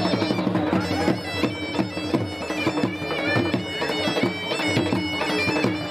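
Bagpipe playing a lively folk melody over a steady drone, with dhol drum beats struck in a quick rhythm.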